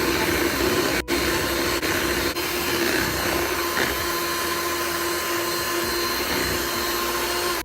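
Electric mixer running steadily at one speed, beating cake batter, with a steady motor hum; it cuts off suddenly at the end.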